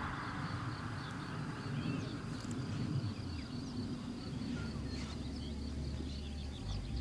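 Countryside ambience: scattered short bird chirps and a steady high insect trill over a low outdoor rumble. A faint hiss fades away in the first couple of seconds.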